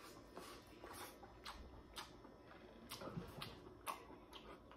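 Faint mouth sounds of someone chewing seafood boil: a few scattered clicks and smacks, spaced about half a second to a second apart.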